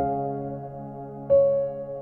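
Slow, gentle lullaby music: soft sustained notes, with a new note struck at the start and another about a second and a quarter in, each ringing on and fading away.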